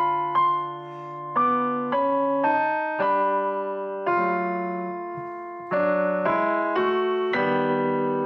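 Digital piano played four-hands: slow, sustained chords struck every half second to a second and a half, each ringing and fading before the next, with one chord held longer in the middle.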